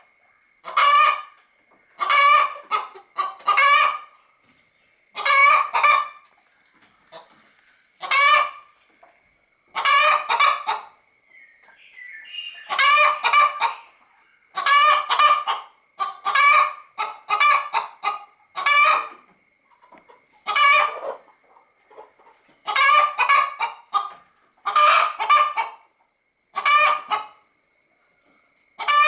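Domestic hen calling over and over, in short clusters of two or three loud calls repeating about every two seconds in a rhythmic pattern.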